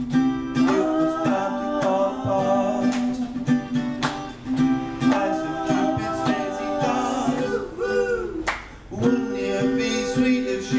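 Acoustic guitar strummed in a steady rhythm under a voice singing a pop song, a live acoustic band performance.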